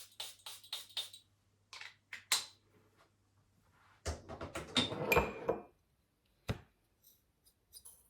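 Handled objects clicking and clinking: a quick run of light sharp clicks, then a longer clatter about four seconds in and a single knock a second later.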